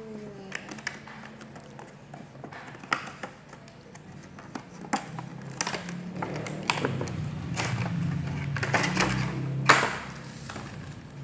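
Plastic Play-Doh toy pieces and packaging being handled and taken out of the box: scattered clicks, taps and light rustling, with a low hum underneath through the middle stretch.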